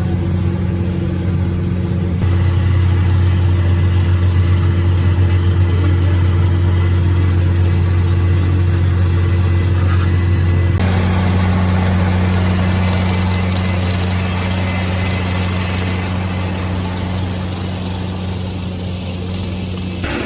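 Tractor engine running steadily while it pulls a bush hog rotary cutter through grass. The sound changes abruptly twice, and from about halfway through a broad rushing hiss joins the engine hum.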